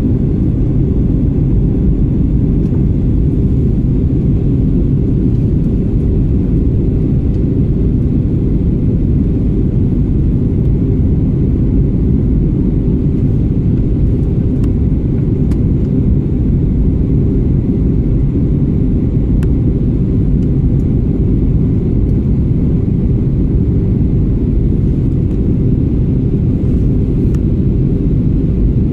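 Airliner cabin noise: a steady, loud low rumble of the engines and rushing air heard from inside the passenger cabin on approach to landing.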